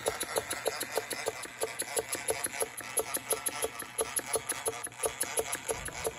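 A small model beam engine running steadily, beating in an even rhythm of about four strokes a second.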